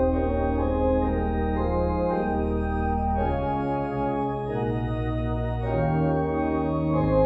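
Organ playing slow, held chords over a deep bass line, the bass moving to a new note a few times.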